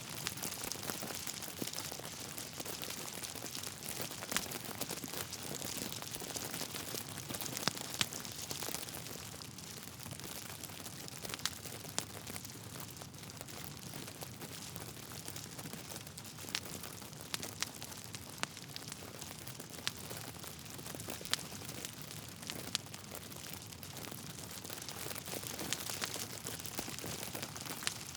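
Wood fire burning in a fireplace: steady crackling with frequent sharp pops from the burning logs, a few louder ones scattered throughout.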